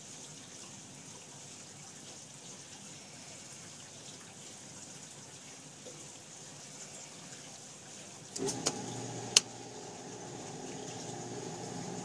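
Hobart commercial dishwasher filling its tank with water, a faint steady hiss. About eight seconds in, its pump motor starts with a hum and keeps running, with a sharp click a second later. The pump runs briefly during the fill, which the owner guesses is to circulate the water.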